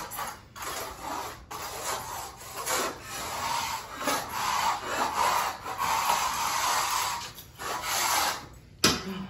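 Long-handled floor scraper pushed across an old linoleum floor in repeated rasping strokes, its blade scraping up leftover carpet padding, with a longer unbroken stretch of scraping in the middle. A single sharp knock near the end is the loudest sound.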